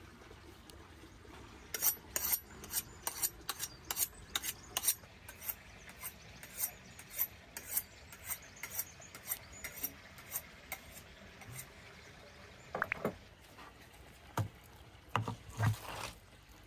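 Kitchen knife blade drawn back and forth along a sharpening steel, about two to three quick scraping strokes a second, growing fainter and stopping before the end. A few dull knocks follow near the end.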